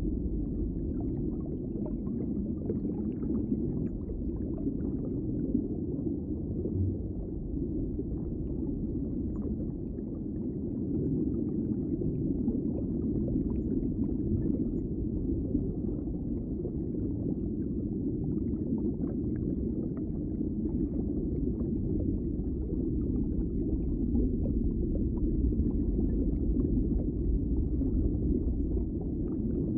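Underwater ambience: a steady, muffled low rush of water with faint scattered bubbly pops.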